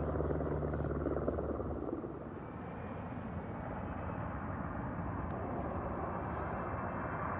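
A firefighting helicopter hovering, a steady low rotor and engine drone under a rushing noise, which stops at a cut about two seconds in. After it comes a rushing noise with a thin steady high whine.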